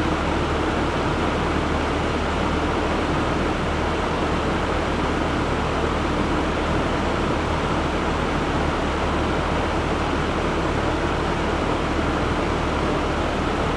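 Steady rushing noise with a low hum from the rolling-road dyno setup around a Ford Focus ST170; the engine is not being revved.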